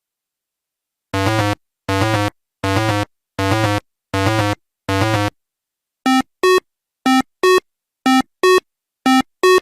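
Synthesized electronic tones: six identical buzzy notes at an even pace, then pairs of short, higher beeps repeating in the same rhythm. Each one starts and stops abruptly.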